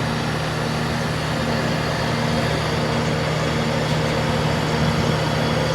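Vintage Emerson Quiet Kool 22-pint dehumidifier running: its compressor giving a steady hum under the even rush of its fan, a sign that the compressor and fan both work.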